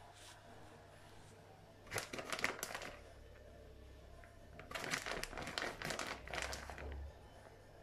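Plastic bag of shredded cheese crinkling as it is shaken and squeezed over a pizza, in two bouts: a short one about two seconds in and a longer one from about five to seven seconds.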